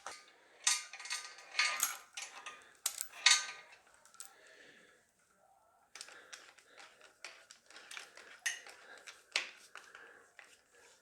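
Steel chain and metal parts being handled: a run of sharp metallic clinks and rattles with brief ringing, pausing for a second or so midway before the clinking resumes.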